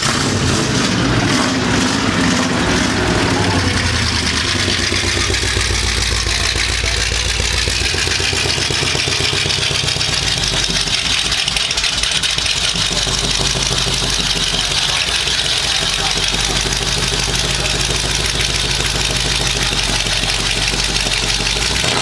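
A late-1970s Pontiac Firebird's engine idling steadily.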